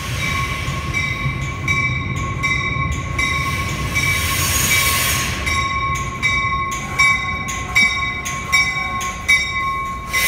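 Metra bilevel commuter train rolling along a platform track, its steel wheels squealing on the rails in a steady high tone. Regular clicks about every three-quarters of a second, louder in the last few seconds, come from the wheels passing over rail joints.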